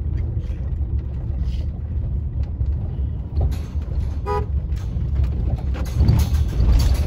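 Full-size van's engine and tyre rumble heard from inside the cabin while driving over a dirt track, swelling louder near the end. A single brief horn toot sounds about four seconds in.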